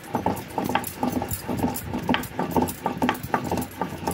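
Stone pestle worked back and forth on a flat grinding stone (sil-nora), grinding mustard seeds to a paste: rhythmic gritty scraping strokes with clicks, about four a second.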